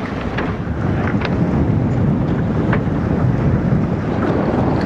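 Wind buffeting the microphone: a steady low rumble, with a few faint ticks above it.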